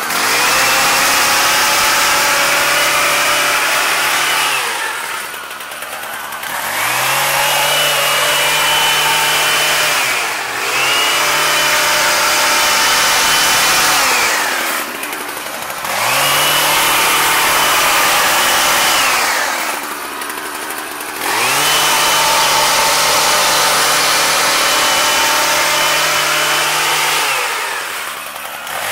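Husqvarna 122HD45 double-bladed hedge trimmer's small two-stroke engine revving to full throttle in bursts of a few seconds while trimming a bush. It drops back briefly to idle between bursts, about five times.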